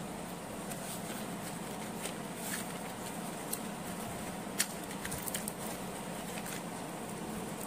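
Light clicks and taps of a small cardboard pencil box being handled and opened by hand, a few scattered ticks with a sharper click about halfway through, over a steady background hum.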